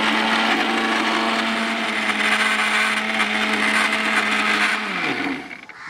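Electric mixer grinder running steadily with its stainless steel jar, grinding a wet paste of coconut, chillies and spices. About five seconds in it is switched off and its motor whine falls in pitch as it spins down.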